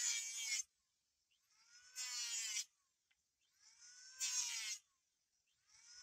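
Electric hand planer shaving a wooden board in short bursts, about every two seconds. Each burst is a high whine with a harsh hiss, lasting under a second, and stops between passes.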